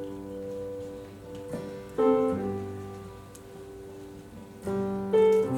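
Soft keyboard music holding sustained chords, with chord changes about two seconds in and again near the end.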